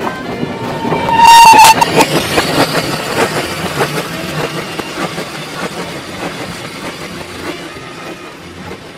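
A small steam tank locomotive gives a short, loud whistle about a second in. Its exhaust beats and the rumble of the moving train follow, fading gradually as it runs slowly through the yard.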